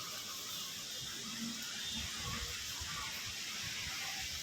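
Strong wind blowing through trees: a steady rushing hiss of moving leaves, with gusts buffeting the microphone in irregular low rumbles.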